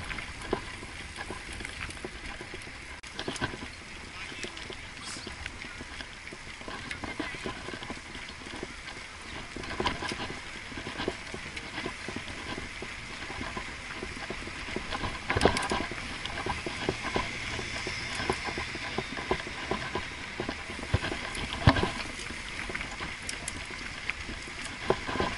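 Riding noise from a road bicycle rolling at about 16 km/h: steady wind and tyre hiss with scattered clicks and knocks. Two sharper knocks come in the second half, with faint voices of other riders.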